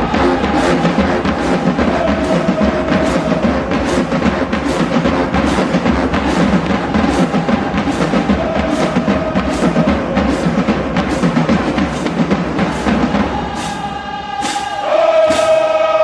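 Marching band playing: the drums and bass drums drive a steady beat under the horns. Near the end the drums drop out and the brass holds long chords.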